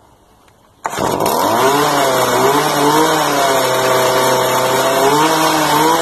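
Stihl FS 55 RC string trimmer's two-stroke engine catching on the first pull of the starter cord about a second in, then running steadily with its pitch wavering a little. It starts right up now that cleaning the carbon-clogged spark arrestor has brought the compression back up, though the owner thinks the carburetor needs a slight adjustment.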